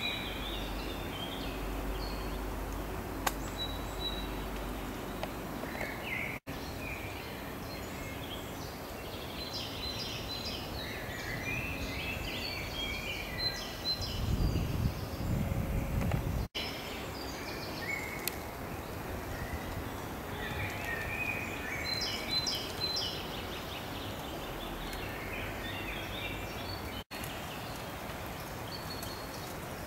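Several songbirds singing in a woodland, short chirps and warbling phrases coming and going throughout over a steady outdoor hiss. A low rumble sits under them about halfway through, and the sound drops out for an instant three times.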